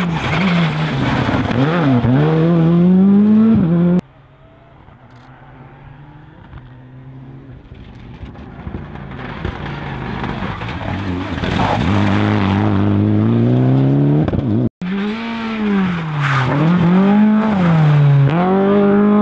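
Rally car engines passing one after another: a Škoda Fabia R5 revving hard with the pitch dipping and climbing, cut off suddenly about four seconds in. Then a Mitsubishi Lancer Evolution X approaching, its engine steadily rising in pitch and growing louder. After another abrupt cut about fifteen seconds in, a Lada rally car's engine revs up and down in quick swings.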